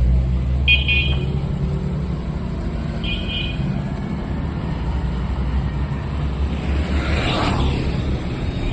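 Street traffic: a motor vehicle engine running steadily close by, with another vehicle passing about seven seconds in. Two short high chirps sound about a second in and again about three seconds in.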